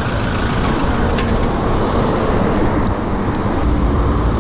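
City road traffic heard from a moving bicycle: a steady, loud rush of traffic and wind noise on the action camera's microphone.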